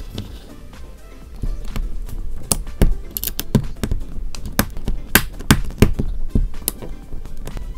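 LEGO plastic bricks and plates clicking as they are pressed onto a build, sharp irregular snaps about two a second, sparser in the first second.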